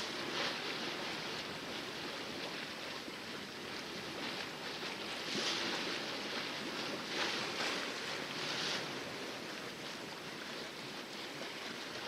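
Water rushing and splashing along the hull of a sailboat under sail in calm seas, a steady wash with louder splashes now and then.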